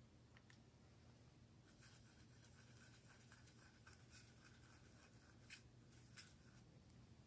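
Faint scratching of a small paintbrush being worked around in a watercolour pan of a plastic paint palette, with two light ticks near the end.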